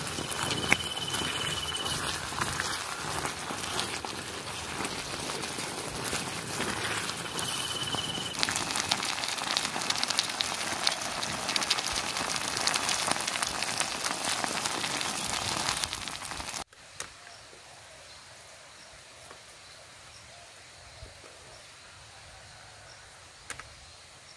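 Shrimp in thick padang chilli-tomato sauce simmering and sizzling in a pan on a portable gas stove: a steady crackling hiss with many small pops. It cuts off abruptly about two-thirds of the way through, leaving a much quieter outdoor background with a few faint clicks.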